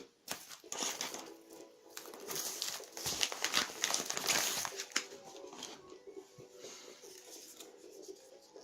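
Plastic parcel packaging crinkling and tearing as it is unwrapped by hand, an irregular rustle that is loudest in the middle.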